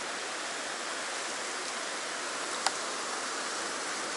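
Steady rush of fast stream water pouring over bedrock ledges and rapids, with a single sharp click about two and a half seconds in.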